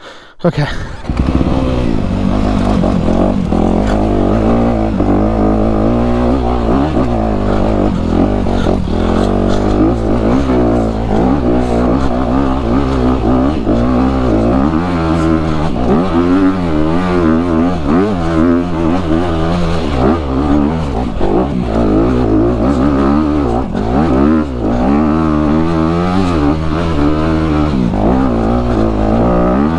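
Honda dirt bike engine running hard up a steep trail, revs rising and falling continuously as the throttle works. The engine comes up loud about a second in.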